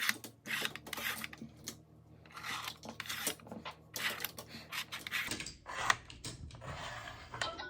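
Small plastic toy cars being slid along the grooves of a Rush Hour traffic puzzle board, with irregular short scrapes and light clicks as the pieces move and knock together.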